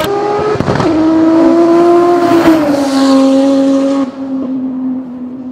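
Turbocharged 3.0-litre V6 of an Audi S4 quattro hillclimb car running at high revs, with a short break in the sound under a second in. Its pitch climbs slightly, then drops about two and a half seconds in, and the engine grows quieter about four seconds in.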